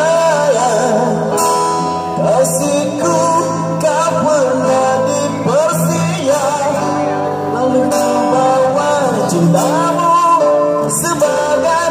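Live street band playing: a man sings into an amplified microphone over guitar, keyboard and drum kit, with cymbal crashes here and there.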